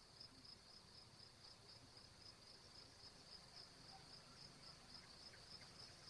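Faint, steady insect chirping, a high, pulsing trill repeating about four times a second, typical of crickets.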